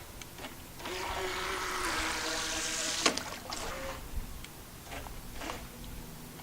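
Small remote-control racing boat's electric motor whirring as it runs on the water, with a spell of hissing spray about a second in and a sharp knock about three seconds in.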